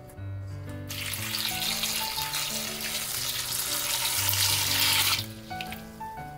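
A stream of water pouring into a stainless steel bowl of salted cucumber slices, rinsing off the salt; it starts about a second in, grows a little louder, and stops suddenly about five seconds in. Background music plays throughout.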